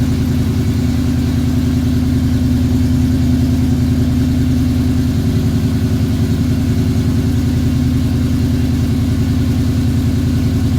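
1972 Chevrolet Camaro RS engine idling steadily.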